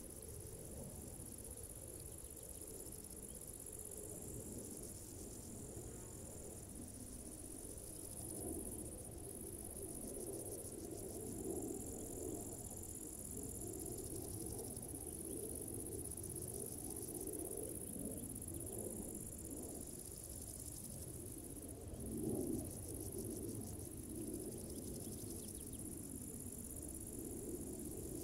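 Meadow insects chirping in a steady high-pitched buzz, with a second insect singing in bouts of a few seconds that start and stop. Under it runs a low, uneven wind noise, strongest in a short gust about 22 seconds in.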